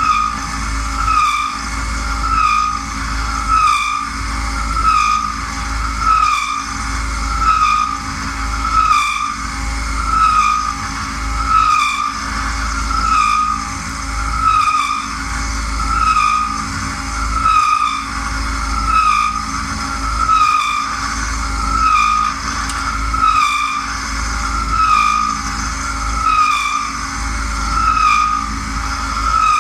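CNC milling machine running a repeating toolpath: the stepper-motor drives whine, rising and falling in pitch about once a second, over a steady low hum from the machine.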